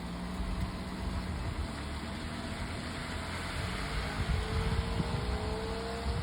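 A motor vehicle's engine running, a steady low rumble, with a faint tone slowly rising in pitch toward the end.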